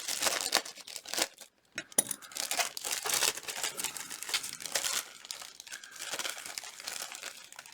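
Plastic bags holding model kit sprues crinkling and tearing as they are pulled open by hand, with a brief pause about a second and a half in.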